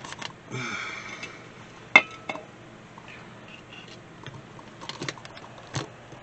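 Handling noise and scattered metal clinks and knocks. There is a short scraping noise near the start, and the loudest sound is a sharp, ringing metallic clink about two seconds in.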